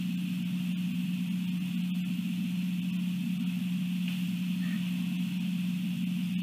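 A steady low mechanical or electrical hum, even and unchanging, with a steady higher hiss above it.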